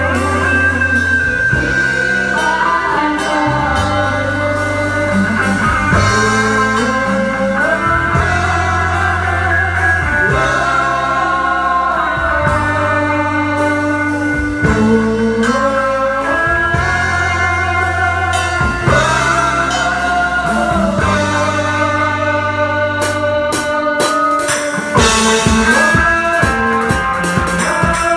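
Brazilian gospel song: a sung melody over bass and guitar, with a drum kit coming in near the end.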